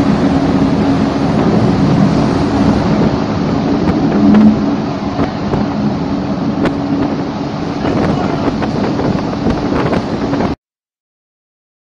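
Ship's engine humming under churning rough sea and wind buffeting the microphone, with a louder surge about four seconds in. The sound cuts off suddenly about ten and a half seconds in.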